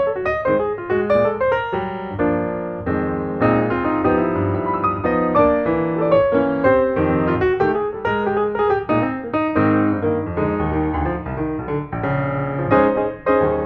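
Background piano music: a quick melody over chords, with many notes struck in rapid succession.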